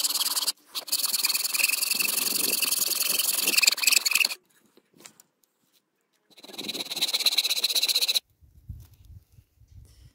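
Small bow saw cutting through a piece of wood by hand, a fast run of sawing strokes that stops about four seconds in. A second, shorter run of strokes follows a couple of seconds later and ends as the piece is cut off.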